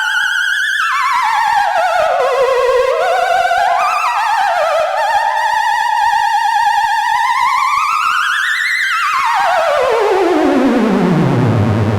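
Electronic Opera Singer model 23 sounding a single warbling electronic tone with heavy vibrato, theremin-like, sliding up and down in pitch. Near the end it climbs to a peak, then glides steadily down to a low held note.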